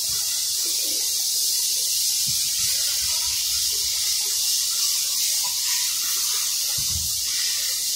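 A steady high hiss, with a few faint low knocks.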